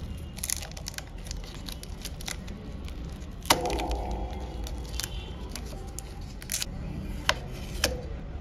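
Adhesive battery shield being peeled off inside a Vivo Y22 phone: small crackles and clicks of tape and film coming away. One sharp click about three and a half seconds in rings briefly, and two more clicks come near the end.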